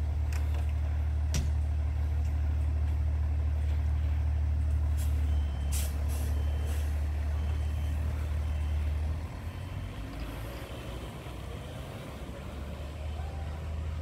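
Fire engine's diesel engine running with a loud steady low drone. Air-brake hiss comes about five to six seconds in, followed by a row of short high beeps. The drone drops off about nine seconds in and comes back fainter near the end.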